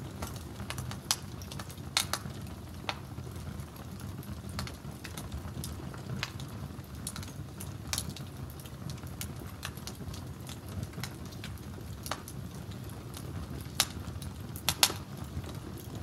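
Wood fire crackling, with scattered sharp pops over a steady low rumble. The loudest pops come about two seconds in and again near the end.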